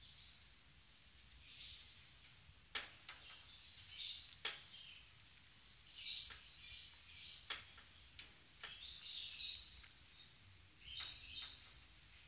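Small birds chirping in short, high-pitched bursts every second or two, with a few sharp clicks among the chirps.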